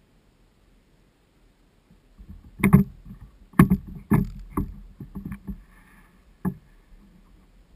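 A series of about eight loud, sharp knocks and thumps, irregularly spaced over some four seconds, the loudest ones first.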